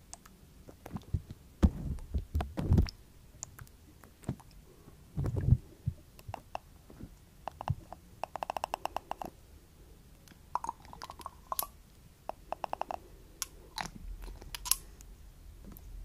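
A glass dropper and glass bottle handled right at a cling-film-wrapped microphone. Drops and taps land on the plastic wrap as soft low thuds, mixed with small glassy clicks. A little after halfway comes a quick rattle of about a dozen ticks a second, lasting about a second.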